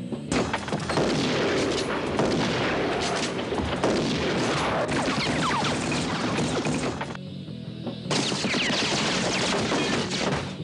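Rapid, sustained gunfire with many shots fired in quick succession. It eases briefly about seven seconds in, then starts again.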